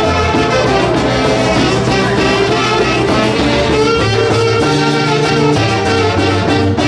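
Peruvian orquesta folclórica playing a Santiago tune, with trumpets and saxophones carrying held melody notes over a steady bass line.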